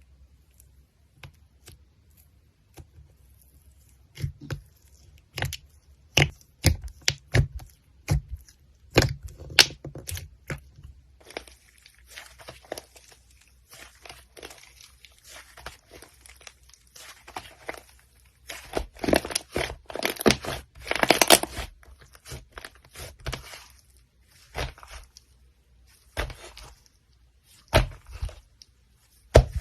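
Slime being pressed and stretched by hand, giving off sticky clicks and crackles: scattered single pops at first, then denser crackling that is loudest about twenty seconds in.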